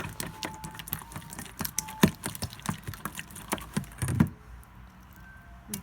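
Glue-and-borax slime being stirred and worked in a container: quick irregular wet clicks and smacks as it starts to bind, stopping about four seconds in.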